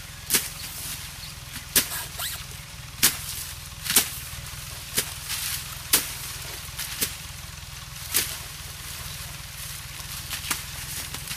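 Sugarcane being cut by hand: sharp chopping strikes of cane knives through the stalks, irregular and about one a second, with a longer gap near the end, over a steady low hum.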